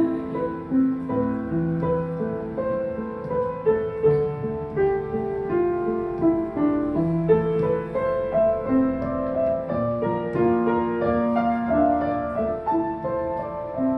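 Instrumental interlude of a slow ballad: a keyboard playing a melody of held notes over sustained chords, with no singing.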